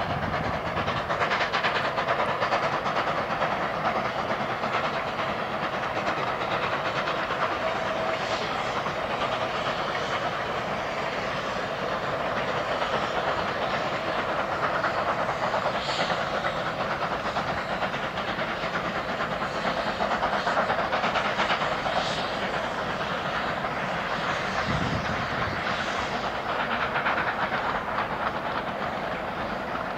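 Narrow-gauge steam freight train climbing a 4 percent grade: the mid-train helper steam locomotive working hard, with the steady rolling rumble and clatter of the freight cars and some steam hiss.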